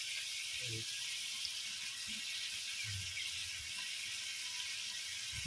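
Field frog meat sautéing in a pan, a steady sizzle.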